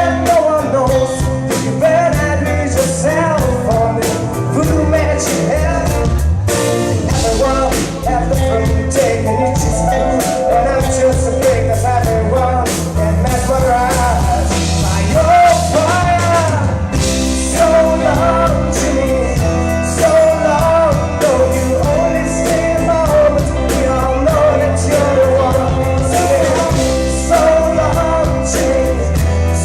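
Live band playing a rock song, a lead singer's voice carrying the melody over a steady drum beat and bass.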